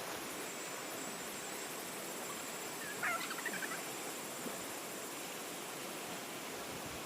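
Steady rush of running water, with a short burst of bird calls about three seconds in.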